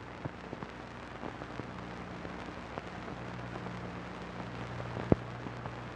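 Faint surface noise of an old film soundtrack: steady hiss and a low hum, sprinkled with small crackles, and one sharp pop about five seconds in.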